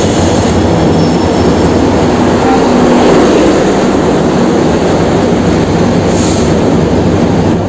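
Passenger train hauled by a diesel locomotive rolling past along a station platform at close range: a loud, steady rumble of wheels on the rails.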